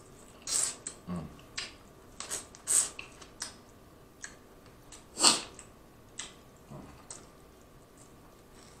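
Eating snow crab legs close to the microphone: a string of short wet slurps, sucks and lip smacks as the meat is drawn out of the shells, the loudest about five seconds in.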